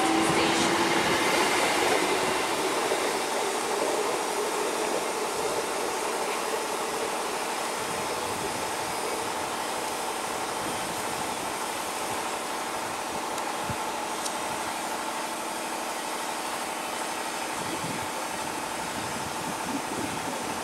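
ICF-built Medha electric multiple unit train pulling away: a steady rumble of running gear with a faint steady motor whine, fading gradually as it moves off.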